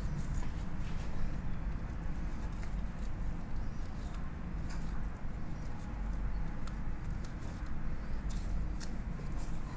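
Kitchen knife cutting the rib-bone edge off a raw mutton snapper fillet on a wooden cutting board: scattered light clicks and scrapes over a steady low background hum.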